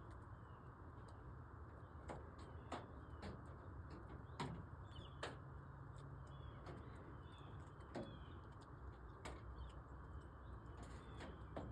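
Faint scattered bird chirps over a steady low hiss, with occasional sharp light clicks at irregular intervals.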